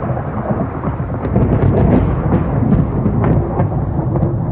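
Thunderstorm: loud rolling thunder, a continuous deep rumble with sharp crackles scattered through it.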